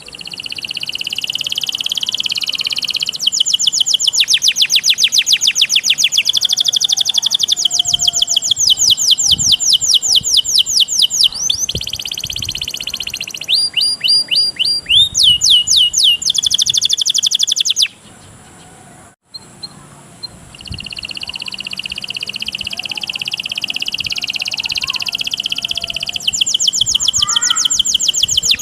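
Songbird mastering recording mixing cililin, cigun and canary song: a loud, fast trilled chatter of rapidly repeated high notes, several songs layered. It breaks off briefly a little past the middle before the trilling resumes.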